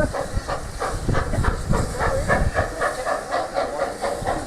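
Steam rail motor No. 93 running, heard from on board: a steady hiss of steam with an even beat of about four strokes a second.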